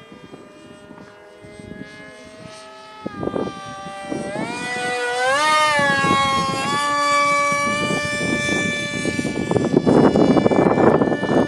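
Whine of a homemade foam RC F-35's small electric motor and propeller in flight, its pitch stepping with the throttle. About five seconds in, the pitch sweeps up and back down as the plane passes close. Gusts of rushing wind noise hit the microphone, loudest near the end.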